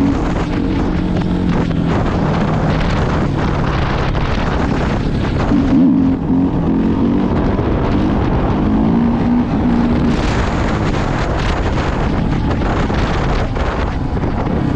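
Suzuki 450 dirt bike's single-cylinder four-stroke engine revving up and down under throttle while ridden, with the front wheel lifted in a wheelie about eight seconds in. Heavy wind noise on the microphone.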